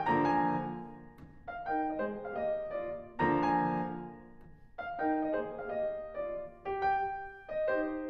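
Gentle background piano music: slow single notes and chords, each struck and left to fade.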